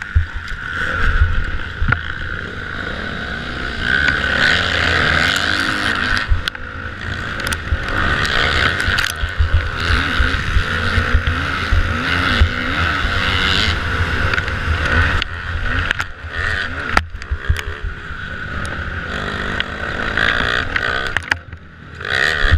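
Kawasaki motocross bike engine heard from a camera mounted on the bike, revving up and down as the rider accelerates along the track, with wind buffeting the microphone and occasional knocks. The engine drops off briefly near the end.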